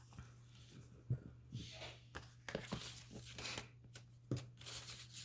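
Paper being handled: faint rustling and light taps of craft papers and envelopes, in short scattered bursts.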